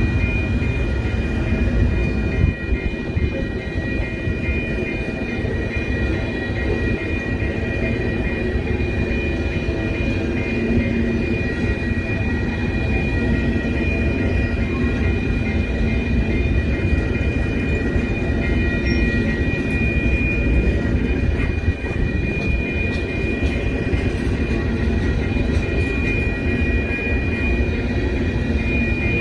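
Freight train of covered hopper cars rolling past: a steady rumble and clatter of steel wheels on rail, with a thin high-pitched tone held over it.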